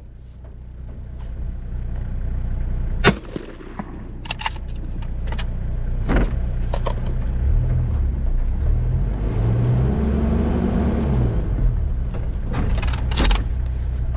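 4x4 driving over a rough dirt track, its engine running with a low rumble that revs up and eases off, with knocks and rattles from the bumps. A single sharp bang about three seconds in is the loudest sound.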